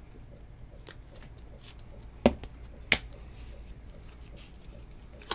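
Trading cards and a rigid plastic card holder handled by hand: light ticks and rustles, with two sharp clicks about two and three seconds in.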